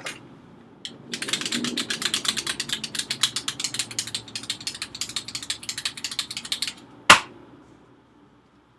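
Rapid ratchet clicking from a screwdriver, about ten clicks a second for nearly six seconds, then one sharp, louder click near the end.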